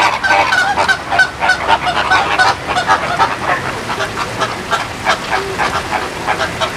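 A flock of birds calling: many short calls in quick succession, several a second, overlapping.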